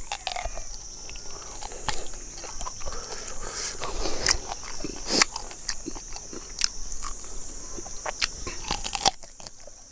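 Close-up chewing and lip-smacking of roasted chicken and rice eaten by hand, with crunching on bone and many irregular wet clicks. A steady high-pitched buzz runs behind it and cuts off near the end.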